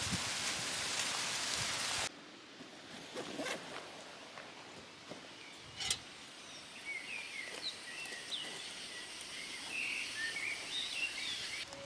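Steady rain hiss that cuts off suddenly after about two seconds, leaving a quieter outdoor ambience with one sharp click, then small birds chirping through the second half.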